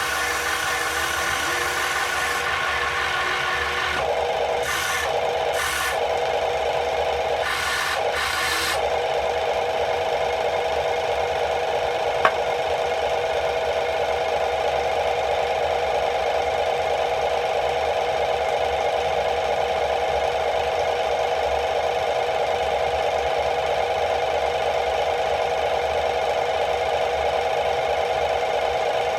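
Steady rasping buzz of a small motor running without pause. Its pattern shifts a few times in the first nine seconds, and there is one sharp click about twelve seconds in.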